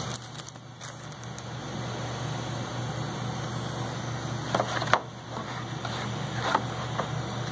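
Packaging handled: rustling and crinkling of paper and packing material with a few sharp clicks, the loudest about five seconds in, over a steady low hum.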